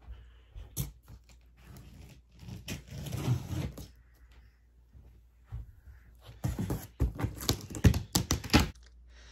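Large cardboard shipping box being worked open by hand: a sharp tap about a second in, some rustling handling, then near the end a fast run of scraping, ripping and clicking as packing tape and cardboard are cut and torn.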